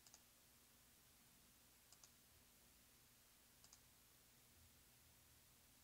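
Near silence: room tone with a few faint, short double clicks of a computer mouse.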